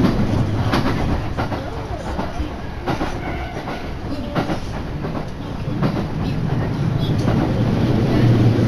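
Train running on the rails, heard from inside the carriage: a steady low rumble with irregular sharp clicks of the wheels over rail joints.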